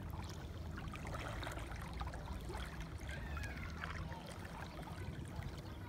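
Seawater gently lapping and trickling, with small splashy ticks over a low, steady rumble.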